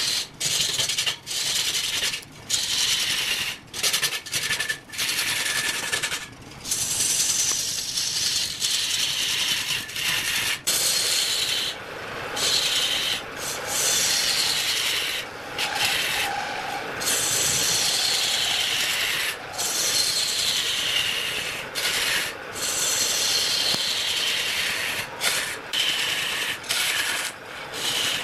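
Turning tool cutting into a large log spinning on a wood lathe: a continuous scraping hiss of wood being shaved off, broken by many brief breaks.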